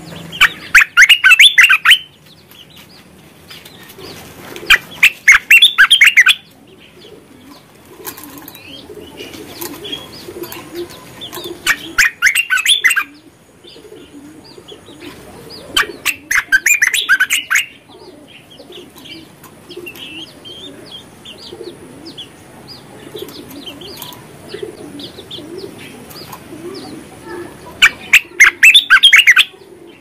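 Bulbul (merbah) singing five loud phrases of rapid notes, each one to two seconds long, with softer chirps between them.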